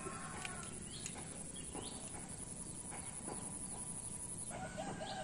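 Outdoor ambience: a high, steady insect trill that stops about four and a half seconds in, with a few short rising bird chirps and some faint clicks.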